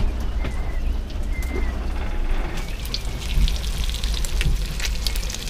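Food frying in a pan on a galley stove: oil crackling and spitting in quick, irregular pops that grow denser about halfway through, over a steady low rumble.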